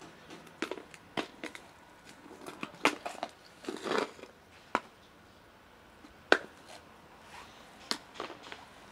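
Irregular sharp plastic clicks and knocks from a plastic cat-food container being handled and opened, with a longer scratchy rustle about four seconds in.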